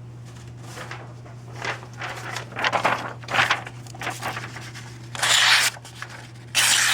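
Sheet of paper being sliced with the serrated blade of a Victorinox Spartan Swiss Army knife: a series of short tearing cuts, the last two the loudest, which go through like butter.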